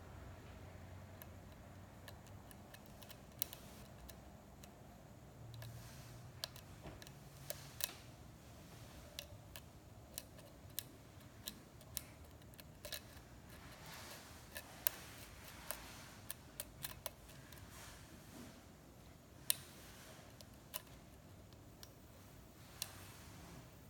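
Lock pick working the pins of a Schlage-style pin tumbler cylinder: faint, irregular small metallic clicks, a couple of dozen spread unevenly over the stretch.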